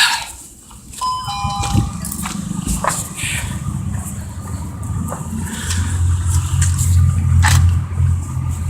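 A short electronic chime about a second in, then a steady low rumble that grows louder from about halfway through.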